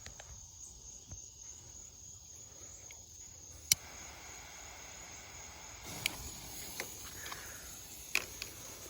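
Crickets chirping in a steady high trill, with a few sharp clicks. About six seconds in, a steady fizzing hiss starts as a sparkler catches and burns.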